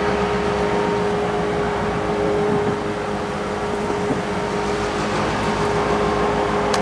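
Norfolk Southern GP38-3 diesel-electric locomotive running as it pulls a string of freight cars slowly past, a steady engine rumble with a constant whine held over it.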